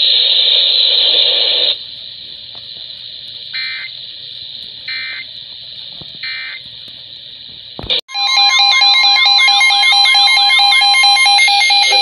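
Weather radio ending a broadcast in static, then three short warbling data chirps about a second and a half apart: the SAME end-of-message code. About eight seconds in, several weather radios sound their warning alarms at once, a steady alert tone layered with warbling, sweeping tones. The steady tone stops shortly before the end.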